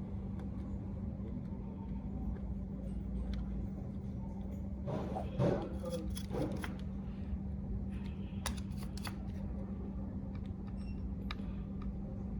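Workbench handling sounds: scattered light clicks and scrapes of tools being handled over a steady low electrical hum.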